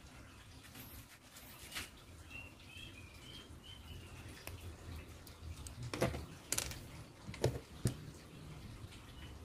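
A series of short, high bird chirps over a low rumble, then a few sharp knocks about six to eight seconds in.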